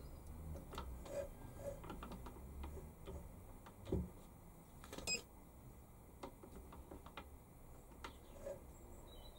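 Faint scattered clicks and ticks from a Warco WM180 lathe's slides and handwheels being wound by hand, with two louder knocks about four and five seconds in, the second with a short high beep.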